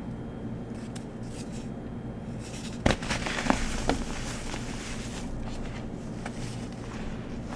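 A crumbly powder lump packed with glitter crushed by hand. A sharp crack about three seconds in is followed by a second of crackling as it crumbles, with soft rustling of loose powder under the fingers around it.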